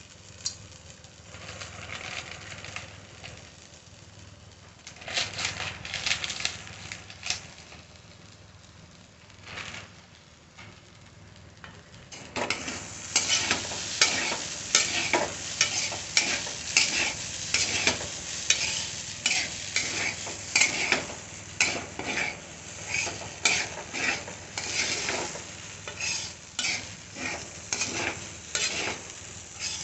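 A perforated metal skimmer scraping and tossing rice in a metal kadai, over a frying sizzle. The stirring is light at first and turns brisk and louder about halfway through, with scraping strokes about twice a second.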